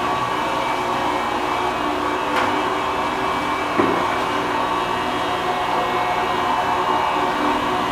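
Electric fish-grinding and mixing machinery running with a steady motor hum and whine, with a short knock a little under four seconds in.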